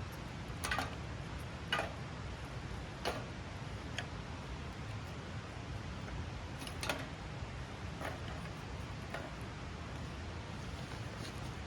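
About eight sharp clicks and light knocks at irregular intervals, over a steady low background noise.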